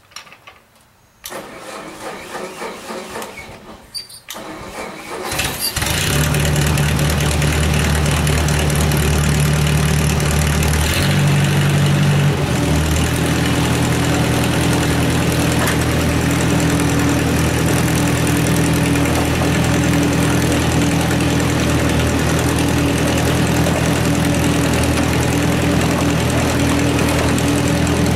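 A riding lawn tractor's small engine cranks unevenly on the starter for a few seconds, catches about five seconds in, and settles into a steady run. Its pitch shifts briefly partway through, then holds steady.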